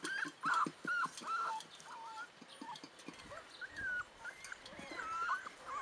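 Puppies whimpering: a run of short, high whines that bend up and down, one every half second or so, with small clicks from eating at a metal feeding bowl.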